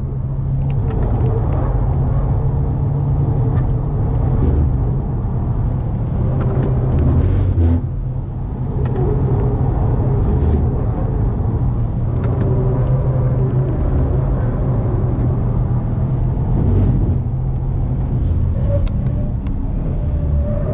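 Cabin sound of a 2018 Subaru WRX STI Type RA at track speed: its turbocharged 2.5-litre flat-four engine running under load over a steady low rumble of road and tyre noise, with a few short knocks.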